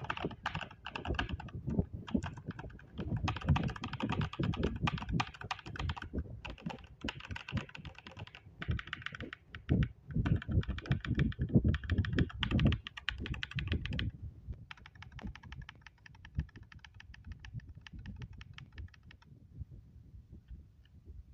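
Mechanical gaming keyboard fitted with Akko V3 Pro switches being typed on fast, in runs of keystrokes with short pauses and a deep, full keystroke sound. After about fourteen seconds the typing turns lighter and thinner, and it stops a few seconds before the end.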